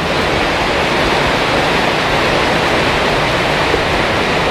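Water of the River Wear pouring over a stepped weir: a loud, steady rush of falling water.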